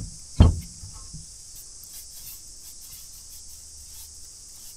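Steady, high-pitched chirring of insects, with two dull thumps in the first half second, the second one louder.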